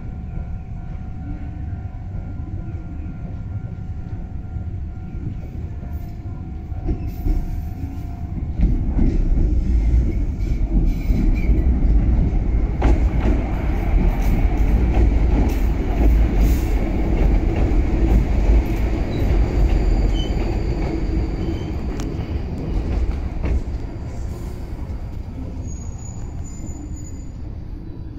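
Two-car Iyo Railway Series 610 electric train pulling into a station platform under a concrete roof. The rumble of wheels on the rails builds sharply about eight seconds in, is loudest as the train passes, then eases off as it slows to a stop.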